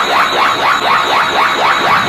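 Dragon Ball Z Kaioken energy ball sound effect, a looped anime energy-charging sound. It is steady and loud, pulsing with quick rising sweeps about six times a second.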